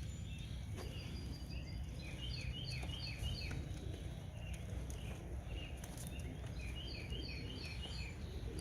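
A wild songbird singing in the open air: short, quick downward-sweeping chirps repeated in runs of three or four, again and again, over a steady low rumble.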